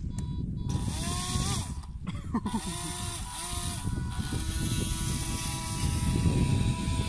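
Small electric motor spinning the air propeller of a homemade RC airboat: a buzzing whine that cuts in and out three times in the first four seconds as the throttle is blipped, then runs steadily as the boat pulls away across the water.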